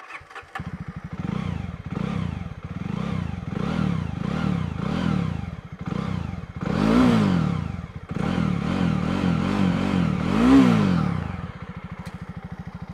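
Jawa Jawa's 293 cc liquid-cooled single-cylinder engine starting up and being blipped through its exhaust. It catches about half a second in, then gets a quick string of short throttle blips and two longer, higher revs about seven and ten and a half seconds in. It settles to a steady idle near the end.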